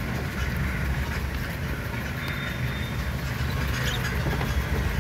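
A car's engine and tyres heard from inside the cabin while driving slowly: a steady low rumble that grows a little louder near the end.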